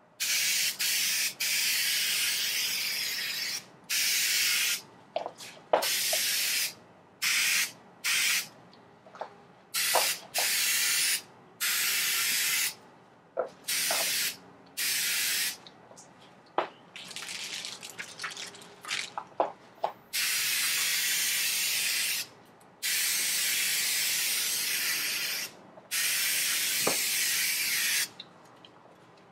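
Aerosol spray can hissing in repeated bursts, some short and some held for two or three seconds, with small clicks and knocks between them.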